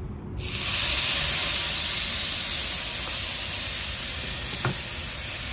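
Venison backstrap sizzling on a hot grill grate, starting suddenly about half a second in as the meat is laid down, then a steady loud hiss.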